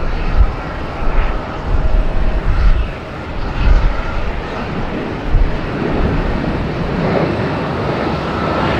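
Jet airliner engines, a loud uneven low rumble with a faint steady whine in it.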